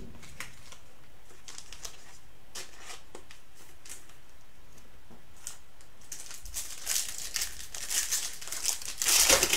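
Light handling with faint clicks and taps, then, from about six seconds in, crinkling and tearing of a foil trading-card pack wrapper being opened, loudest near the end.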